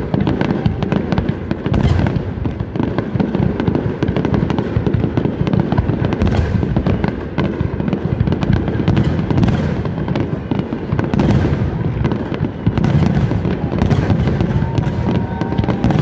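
Fireworks display: a dense, unbroken barrage of aerial shells bursting in rapid, overlapping bangs.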